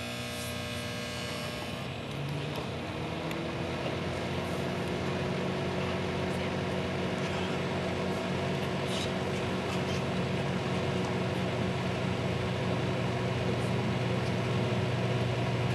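Microwave oven running with a steady hum that grows slightly louder, a second tone joining about two and a half seconds in.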